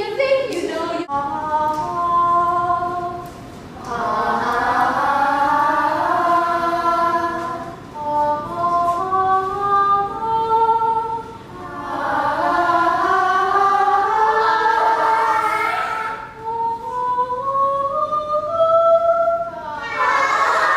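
A group of voices singing together in held notes that step up and down, in phrases of a few seconds with short breaths between them. A sharp click about a second in.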